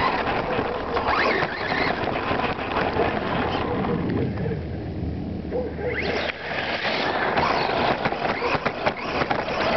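Electric RC short-course truck heard from on board: the motor whines up and down with the throttle while the tyres and chassis clatter over dirt. It eases off for a couple of seconds in the middle, then speeds up again.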